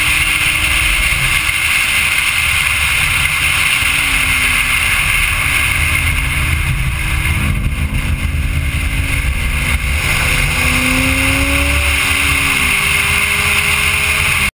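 Steady rush of wind and road noise on a hood-mounted camera of a Corvette Z06 at track speed, with the car's engine note faintly rising and falling beneath it as it shifts and accelerates; the sound cuts off abruptly at the end.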